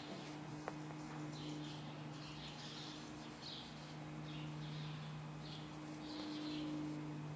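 Faint chirping of small birds, short irregular calls, over a steady low hum.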